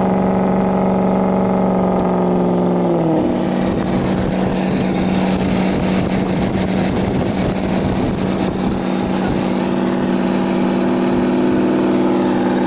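2006 Ford F-550's 6.0 Powerstroke V8 turbo diesel pulling through a straight-piped, muffler- and cat-deleted 3.5-inch exhaust, heard from inside the cab. The engine note holds steady, drops about three seconds in, then climbs again and holds near the end.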